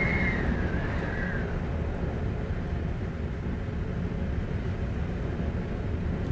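Heavy wind blowing with a steady low rumble; a high whistling howl fades away in the first second and a half.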